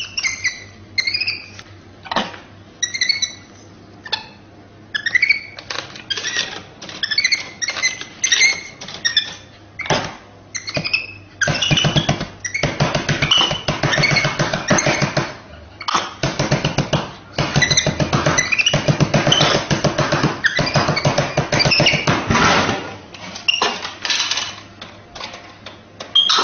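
High squeaky chirps from a monkey in short bursts, with a long stretch of loud, rapid rattling clatter through the middle, the loudest sound.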